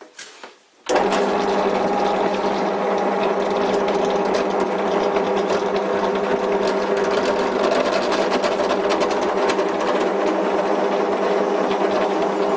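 Bench drill press switched on about a second in, its motor running steadily with a hum while the bit drills pilot holes into a nylon block.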